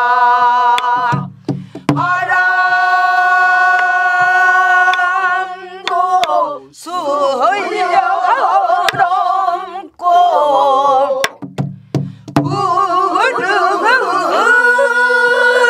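Pansori singing: one voice sustains long, wavering notes with heavy vibrato and slow bends in pitch, phrase by phrase with short breaths between. Sparse single strokes on a buk drum mark the phrases.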